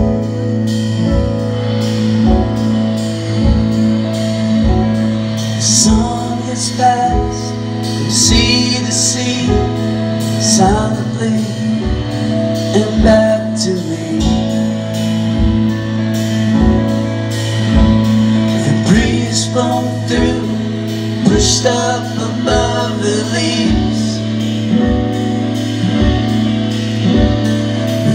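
A live rock band playing with acoustic and electric guitars, bass, keyboards and drum kit. A steady kick-drum beat runs under sustained guitar notes.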